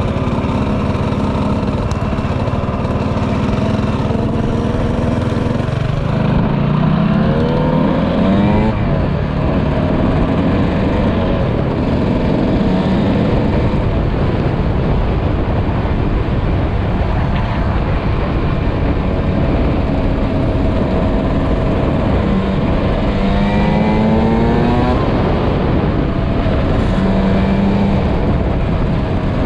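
Suzuki RM125 two-stroke dirt bike engine running hard under the rider, its pitch climbing in two revving sweeps, about seven and twenty-three seconds in.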